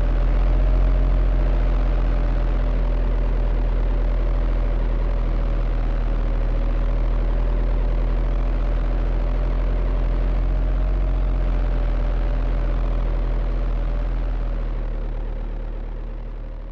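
Heavy construction machine's diesel engine running steadily, a deep rumble under a slightly wavering whine. It sags a little near the end and then cuts off abruptly.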